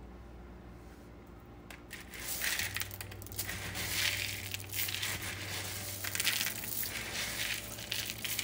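Dry pinto beans rattling and clattering in a plastic colander as a hand stirs and sifts through them, starting about two seconds in.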